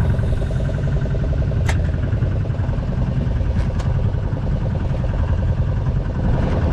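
Boat engine running steadily at a constant pitch, with a couple of faint clicks.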